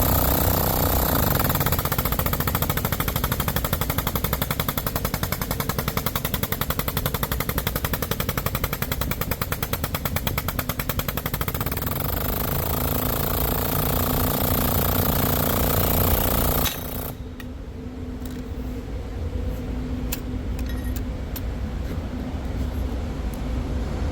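Guided bend test machine running with a fast rattling pulse as it bends a welded test coupon, then cutting off suddenly about 17 seconds in. After that there is quieter background noise with a few sharp clicks.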